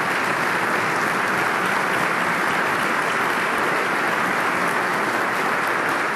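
A large audience applauding steadily, a dense even clatter of many hands clapping.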